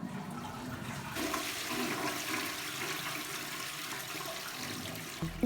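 Toilet flushing: a rush of water that swells about a second in and then runs on steadily.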